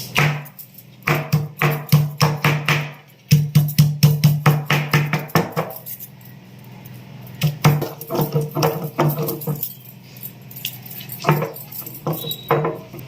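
A pestle pounding leaves in a mortar: sharp ringing strikes, about three a second, in four bursts with short pauses between.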